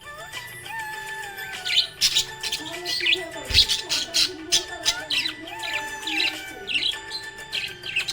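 Budgerigars chirping: a rapid run of short, sharp chirps and warbles, with music playing underneath.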